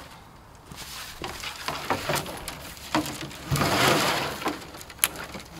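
Uprooted trees' branches rustling and scraping as they are handled and loaded into a truck, with a few sharp cracks and knocks and a longer, louder rustle about three and a half seconds in.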